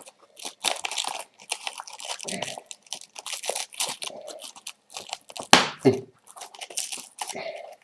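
Nylon MOLLE webbing straps and pouch fabric being pulled and threaded through loops, an irregular rustling and scraping, with one sharp click about five and a half seconds in as a strap's snap button is fastened.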